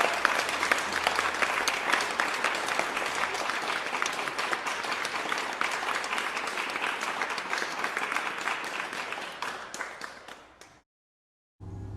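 Crowd applauding, a dense patter of many hands clapping that fades away near the end. It cuts off abruptly, and a steady low hum starts just before the end.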